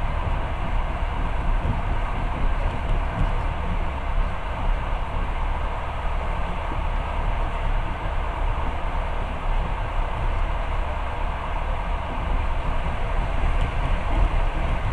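Passenger train running along the track, heard from inside a carriage: a steady, even noise of wheels and carriage, with no distinct rail-joint clicks.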